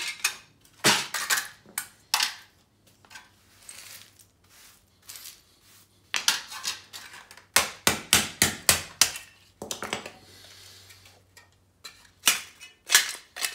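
A hammer striking weighted sterling silver pieces to break out their cement filling: sharp metallic clanks at irregular intervals, with a quick run of about seven blows in the middle.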